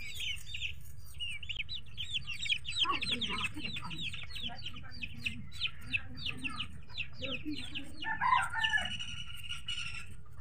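Chickens calling nearby: a rapid, continuous run of high peeps, with lower clucking calls about three seconds in and again near eight seconds.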